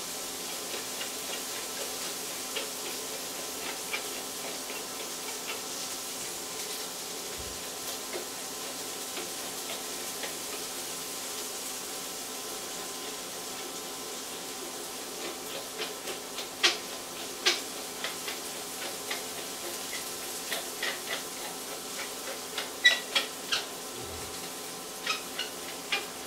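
White beans frying in an iron pan: a steady sizzle with scattered pops that grow louder and more frequent from about halfway through.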